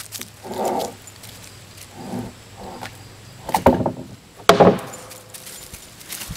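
Freshly sawn white ash slabs being slid apart and shifted by hand on a bandsaw mill bed: wood scraping and rubbing on wood, a few knocks, and one loud knock about four and a half seconds in.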